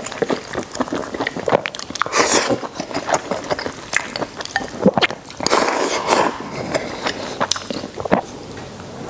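A person eating boiled pig intestines close to the microphone: chewing and biting with many wet mouth clicks, and two longer noisy stretches about two seconds in and again past the middle.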